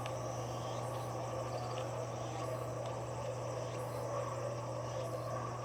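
Outdoor ambient noise: a steady low hum under a faint background hiss, with faint short high chirps repeating about every second and a half.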